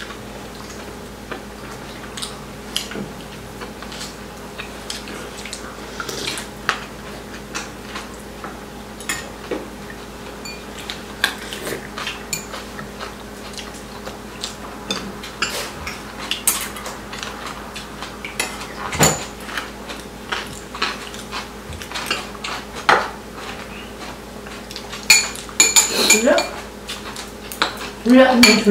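Metal spoons and chopsticks clinking and scraping against ceramic bowls and plates during a meal, scattered taps throughout with a quick run of louder clinks near the end.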